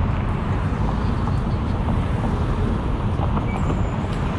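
Vintage streetcar running on its street track: a steady low rumble.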